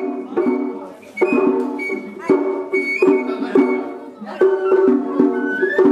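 Music: a plucked-string instrument playing a melody, each note struck sharply and left to ring, over held lower notes.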